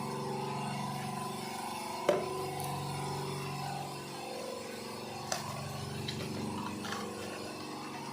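Automatic cartoning machine running: a steady mechanical hum with a few sharp clacks, the loudest about two seconds in and others about five, six and seven seconds in.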